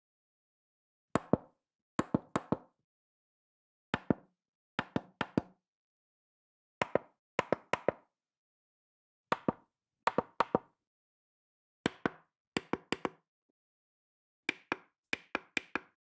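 Washing machine control buttons and programme dial clicking: short groups of two to four sharp clicks about every second or two, with silence between.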